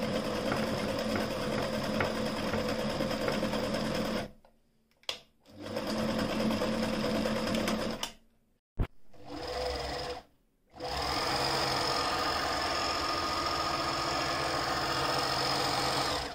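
Frister & Rossmann 202 electric sewing machine running and stitching through layered material, in four runs with short stops between them; the last run is the longest, about five seconds. A sharp click comes in one of the stops, about nine seconds in.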